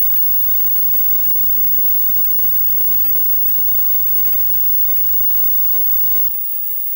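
Steady hiss with a low hum underneath, the background noise of an old analogue TV recording's soundtrack with no other sound in it. Near the end it cuts out abruptly to near silence.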